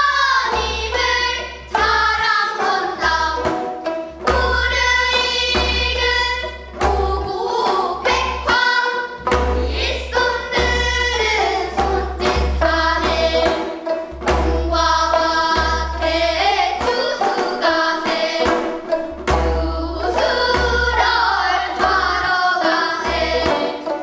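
Girls' voices singing a Korean new folk song (sinminyo) together, accompanied by their own gayageum, the plucked twelve-string zither notes sounding sharply beneath the melody.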